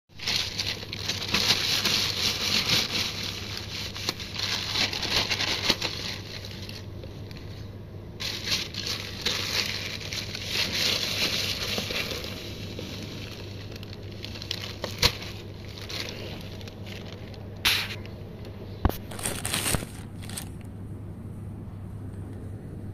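Thin clear plastic film crinkling and crackling as it is handled and crumpled, in two long busy spells with a short pause between, then quieter with a few sharp single crackles. A steady low hum runs underneath.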